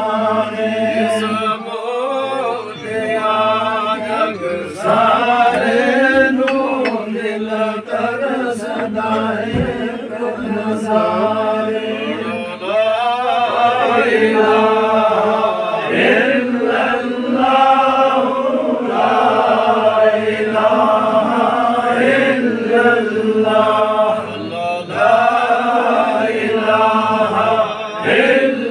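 A group of men chanting zikr together, a Sufi devotional chant of repeated sung phrases in one continuous stream.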